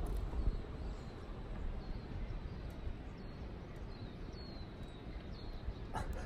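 Wind rumbling on the phone microphone, with a few short, high bird chirps now and then and a single click near the end.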